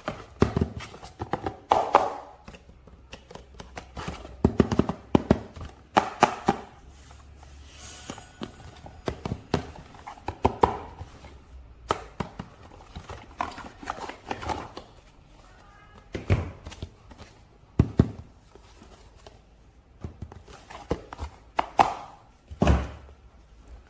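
Plastic toy figure and its packaging being handled: irregular clicks, taps and short rustles, with a few louder knocks near the end.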